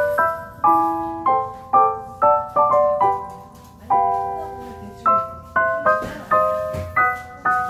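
Background music: a light piano-like keyboard melody of struck notes that fade after each stroke, about two notes a second.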